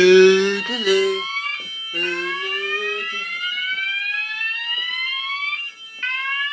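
Fire alarm sounders going off: a KAC sounder on the Dutch slow whoop tone, slow rising sweeps each about four seconds long that restart after a short break. A steady high tone runs alongside, and a lower steady tone sounds on and off in the first three seconds.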